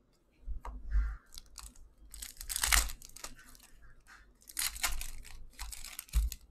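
Plastic-foil hockey card pack wrappers being torn open and crinkled by hand, in several short crackly rips.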